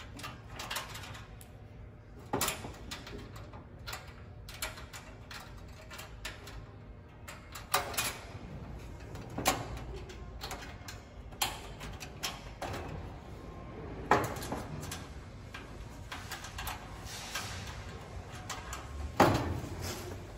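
Irregular light clicks and metallic clanks from a stainless steel gas-grill side wing and its metal brackets being handled and fastened, with lock nuts started by hand. About half a dozen sharper knocks stand out among the fainter rattles.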